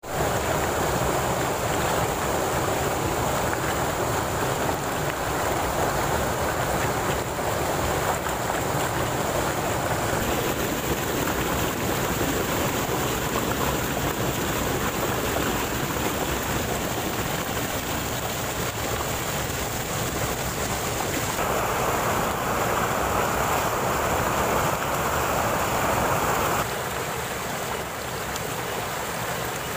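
Stream water rushing and splashing over rocks in a small cascade, a steady rush that shifts in tone a couple of times and drops a little in level near the end, where it runs as shallow rapids over stones.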